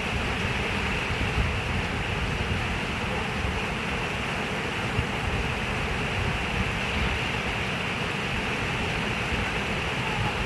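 Running water rushing steadily and evenly.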